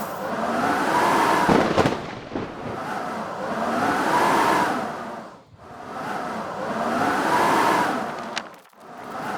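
Blizzard wind howling in gusts, each swelling and dying away about every three seconds with a whistle that rises and falls in pitch; a few faint sharp clicks come through about two seconds in and again near the end.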